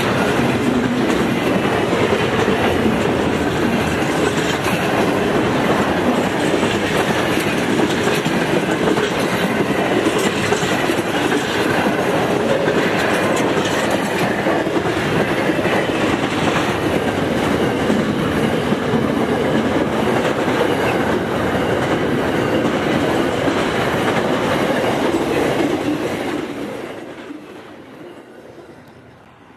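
Intermodal freight train wagons rolling past, a steady loud noise of wheels on rails. About 26 seconds in, the last wagon goes by and the sound fades away.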